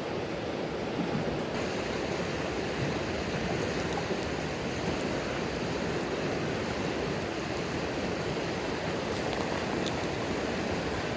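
A mountain stream rushing steadily, with a few faint crackles from the wood campfire.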